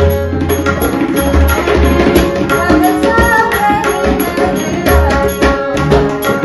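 Tabla and pakhawaj playing a fast, dense rhythm with deep bass strokes over sustained harmonium notes, as accompaniment to a Hindustani devotional bhajan.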